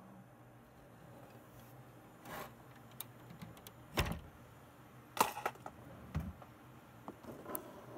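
Scattered clicks and light knocks from handling tools and parts, the sharpest about four seconds in and a quick cluster just after five seconds.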